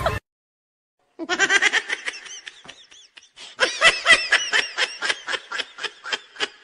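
A person laughing hard: a fast, high-pitched run of laughs that starts about a second in.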